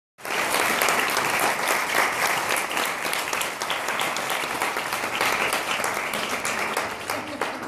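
Audience applauding, a dense patter of many hands clapping that eases slightly near the end.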